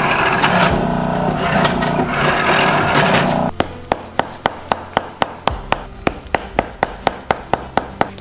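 A leather roller machine runs steadily with a low hum. About three and a half seconds in, it gives way to a hammer tapping welted glove leather pieces flat on a bench, about three sharp blows a second.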